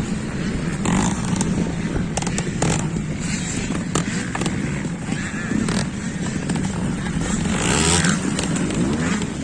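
Trials motorcycle engine running at low revs as it is ridden slowly over rocks, with scattered sharp knocks and scrapes of tyres and bike on rock. There is a louder burst of throttle about eight seconds in as the bike goes up onto the log.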